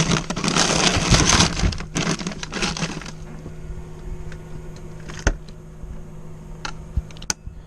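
Grocery packaging and bags rustling and crinkling loudly for about three seconds, then a few light clicks and knocks as items are handled, over a steady low hum.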